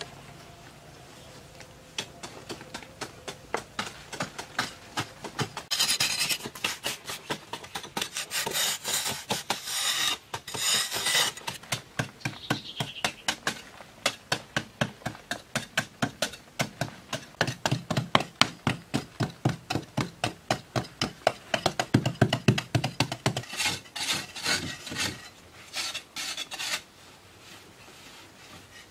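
A metal-bladed hand tool scraping and gouging a packed-earth wall in quick, repeated strokes, about three a second, as a pattern is carved into the dirt.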